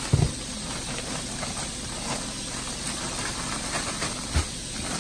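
A zip-top plastic bag of catfish pieces and dry fish-fry breading being shaken by hand: irregular plastic crinkling and rustling, with a low thump just after the start and another near the end.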